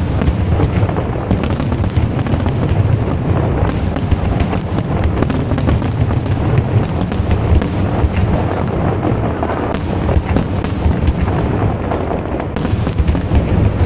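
Aerial fireworks show at full barrage: a dense, unbroken run of overlapping bangs and deep booms with no pause between bursts.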